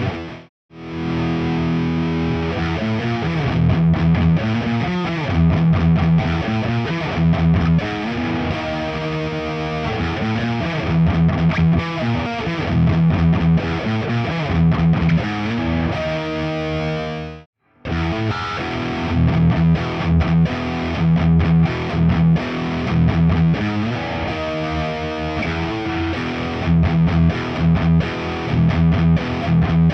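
Nik Huber Krautster I electric guitar with its single Haussel pickup, played through a high-gain Diezel VH4 amp and miked 4x12 cab: distorted rhythmic riffing. The playing stops briefly twice, just after the start and about two-thirds of the way in.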